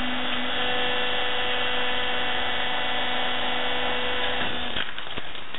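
Vertical hydraulic log splitter's motor and pump running with a steady whine as the splitting wedge is driven down into a log. The steady tone drops out about four and a half seconds in.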